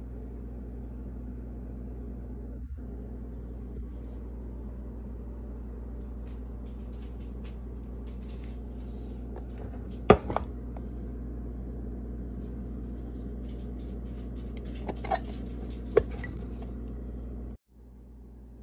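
Glass food-storage dishes clinking over a steady low hum: one loud sharp clink about halfway through, then a few lighter clinks some five seconds later. The hum cuts off abruptly near the end.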